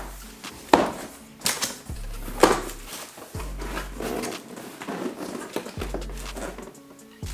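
Background music with a repeating bass note, over a few sharp knocks and clatters from handling the packaging and parts of a new vacuum cleaner.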